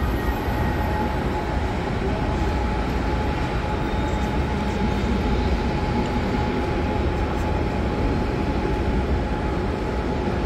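Train running in a railway station: a steady rumble with a thin steady whine held above it.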